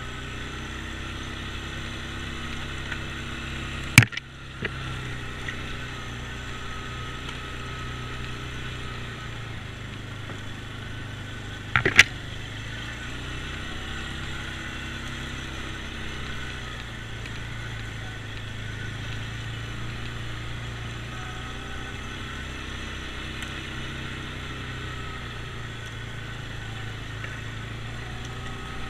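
ATV engine running at trail speed, its pitch rising and falling with the throttle, with two sharp knocks, about four and twelve seconds in.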